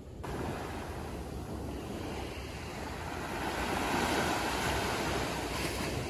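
Small waves breaking and washing up a sandy beach, the surf swelling louder around the middle and then easing.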